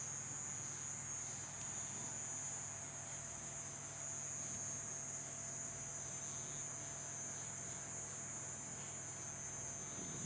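A steady high-pitched drone over a low, even hum, unchanging throughout, with no audible rhythm of breathing.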